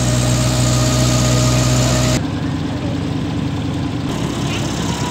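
Motorboat engine running steadily with a deep, even hum. About two seconds in the sound changes abruptly and the hum becomes less distinct.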